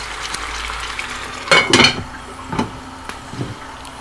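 Tofu and vegetables in seasoned sauce sizzling in a pot, then the pot's lid set on with two ringing clanks about a second and a half in. After the clanks the sizzle goes quieter under the lid, with a few small clicks.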